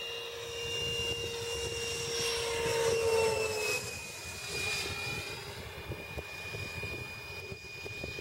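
Electric ducted-fan whine of a 90 mm model jet flying past overhead. It grows louder to a peak about three seconds in, then drops in pitch and fades as the jet passes.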